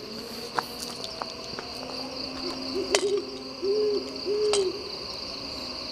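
An owl hooting: a quick run of short hoots about midway, then two longer, arched hoots, over a steady high-pitched insect drone.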